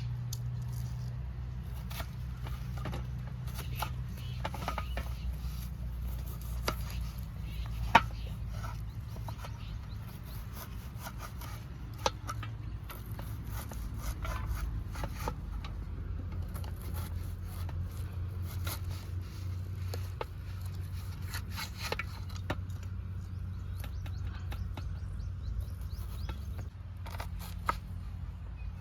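Scattered scraping, rubbing and clicking from hands at work, over a steady low rumble, with a sharp knock about eight seconds in.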